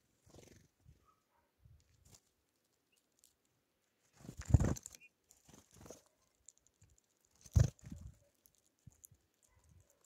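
Wing flutters of small birds (great tits and Eurasian bullfinches) landing and taking off close to the microphone. There are two short loud whirrs, one about four and a half seconds in and one about seven and a half seconds in, with weaker flutters and faint ticks between.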